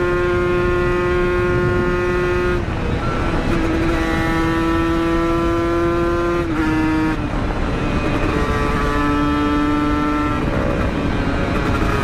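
Kawasaki Ninja motorcycle with an Aitech aftermarket exhaust, ridden hard at high, steady revs. Its engine note drops and settles at a new pitch three times, about two and a half, six and a half and ten and a half seconds in.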